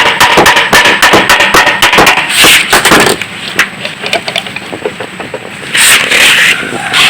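Rapid sharp clicks and knocks of hand tools working on metal engine parts, with two short scraping bursts about two and a half seconds and six seconds in.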